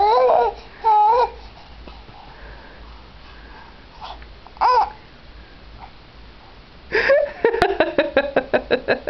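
Baby babbling: a few high-pitched cooing sounds in the first second and again about halfway, then a fast run of short repeated vocal sounds, about six a second, near the end.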